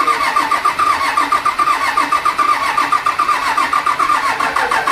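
Rebuilt Doosan excavator diesel engine turning over on its starter, a steady rhythmic chugging of about eight beats a second as it is cranked to start.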